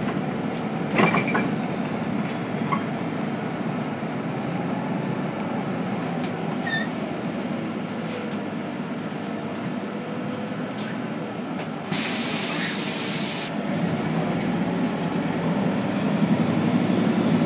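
Steady engine and road rumble heard from inside a moving bus, with a click about a second in and a sharp hiss of released compressed air, lasting about a second and a half, about twelve seconds in.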